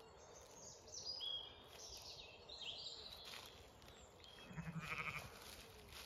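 Small birds chirping with quick high glides, then a sheep bleats once in a short, wavering call about four and a half seconds in.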